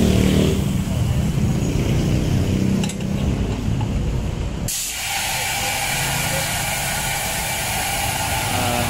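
A vehicle engine runs amid street traffic, then about five seconds in a steady hiss of compressed air starts suddenly, typical of an air hose at a tire shop.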